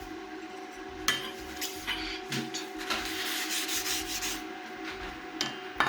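Irregular scrubbing and wiping, something rubbed hard over a surface to clear old thermal compound, with a sharp click about a second in. A faint steady hum runs underneath.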